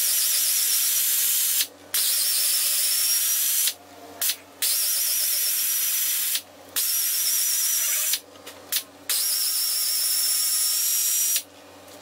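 Pneumatic air ratchet with a 5/16 socket running out the long-threaded driveline flange bolts, in about six runs of one to two seconds with short pauses between: an airy hiss with a wavering high whine.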